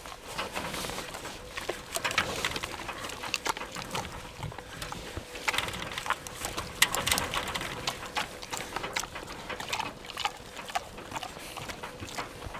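Wild boars eating food offered on a spoon through a wire fence: irregular wet smacking and chewing clicks.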